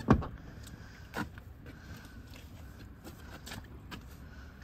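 A thump right at the start from the car's rear door being swung open, then a few faint clicks and rustles as a plastic pet carrier and papers are handled.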